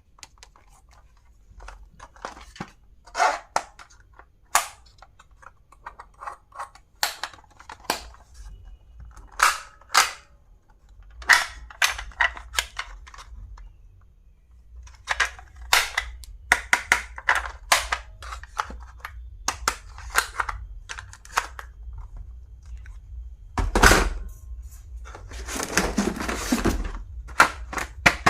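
Irregular sharp clicks, snaps and taps of hard plastic stationery and its packaging being handled and opened, with a longer rustle of packaging near the end.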